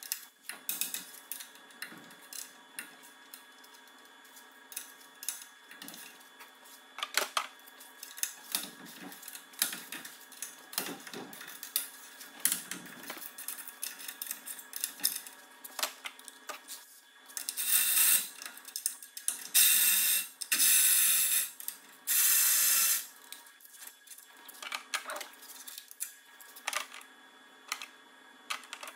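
Socket ratchet working the bolts of a propeller hub: scattered metallic clicks and taps, then four loud stretches of rapid ratchet clicking, each about a second long, a little past halfway through.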